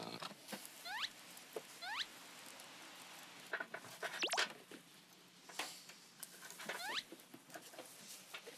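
Comedic squeaky sound effects: several short rising squeaks, two quick pairs about one and two seconds in and single ones later, with a few light taps between.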